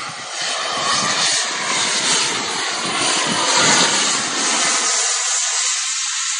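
Fighter jet's engine noise as it flies past in an aerobatic display: a loud, steady rush with a sweeping, phasing quality. The deep rumble drops away about five seconds in.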